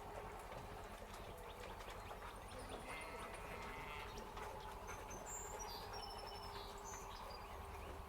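Faint bird chirps, several short high calls scattered through the middle and latter part, over a steady low hum.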